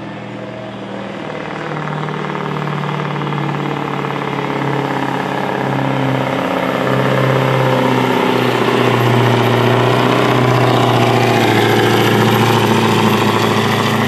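Scania 143M 500 truck's V8 diesel engine running flat out under heavy load as it drags a pulling sled down the track, growing steadily louder, then cutting off abruptly at the very end.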